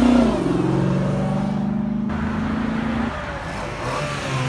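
Dodge Charger SRT's V8 running as the car drives past close by. It is loudest as it passes at the start, then steady, and drops away after about three seconds.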